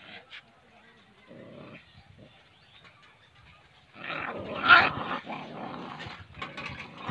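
Two dogs fighting, growling at each other: a short growl about a second in, then louder, continuous growling and snarling from about four seconds in.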